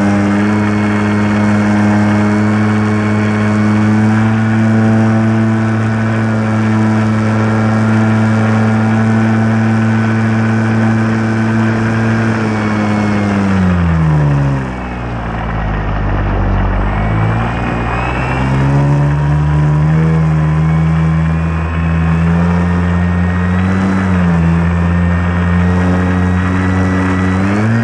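Carbon Cub RC model plane's motor and propeller, heard from on board, running at a steady high note. About halfway through, the throttle comes back and the pitch drops away. It then picks up to a steady lower note and rises back to the first pitch near the end.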